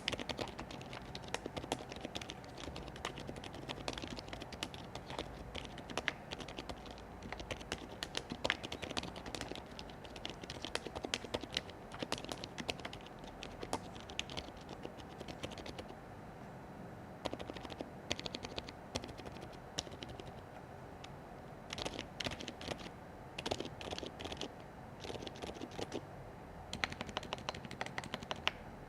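Keychron K2 Max mechanical keyboard with Silent Brown switches being typed on: a fast, continuous run of keystrokes with a couple of brief lulls.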